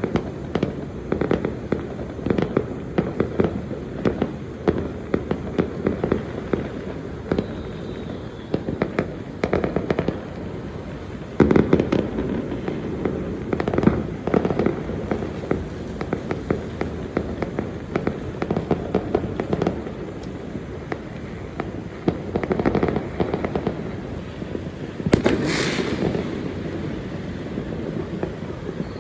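Fireworks and firecrackers going off without a pause, in dense rapid crackling and popping, with louder volleys of bangs about 11, 14 and 25 seconds in.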